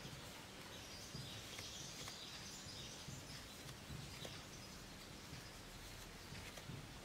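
Very quiet room tone with a few faint soft clicks and rustles from a crochet hook and acrylic yarn being worked through double crochet stitches.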